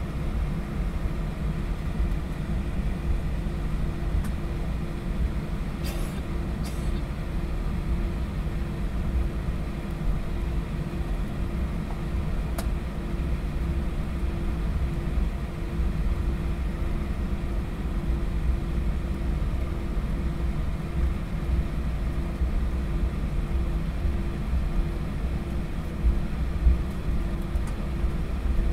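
Steady cabin rumble of a Boeing 737-800 taxiing after landing, its CFM56-7B engines at idle, with a steady low hum running under it.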